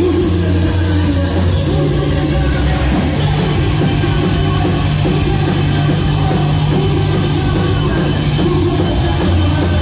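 Live rock band playing loud, with electric guitars and a drum kit.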